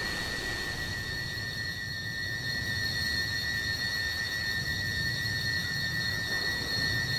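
Layered sound-effect build-up of a Doctor Who regeneration: steady high ringing tones over a low rumble, slowly growing louder.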